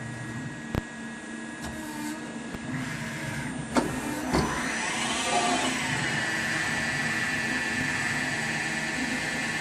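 LICO LNT 36P CNC lathe running, a steady machine hum with a few sharp clicks. About five seconds in a whine sweeps up and settles into a steady high tone as the spindle comes up to speed.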